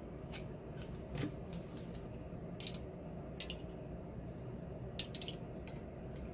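Scattered soft clicks and small handling noises, about seven spread irregularly, over a faint low hum.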